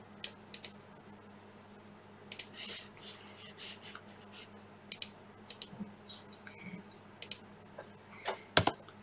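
Irregular sharp clicks of a computer mouse and keyboard, about a dozen spread out, with the loudest near the end, over a faint steady low hum.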